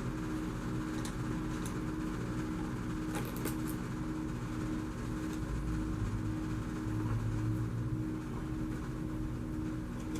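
Steady mechanical hum with a few faint clicks of small parts being handled on a workbench.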